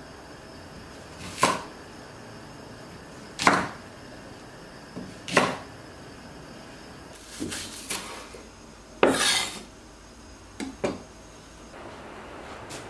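Chef's knife cutting through a thick Korean green onion (daepa) onto a wooden cutting board: about eight separate crisp chops, the first few about two seconds apart, the later ones closer together.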